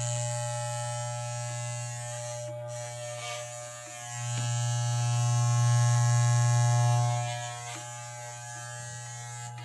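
Electric hair clippers running with a steady buzz. The buzz grows louder from about four seconds in to about seven seconds in, then drops back.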